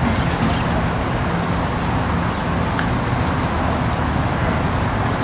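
Steady low outdoor rumble of road traffic.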